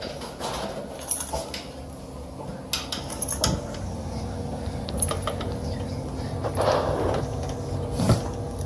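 Scattered metallic clinks, clicks and knocks of metal tools and parts being handled, over a steady low hum.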